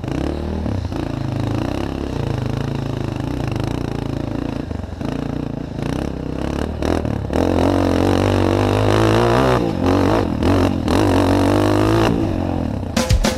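Off-road motorcycle engine running and revving on a dirt trail, its pitch rising and falling with the throttle and louder about halfway through, with clattering and scraping from the ride.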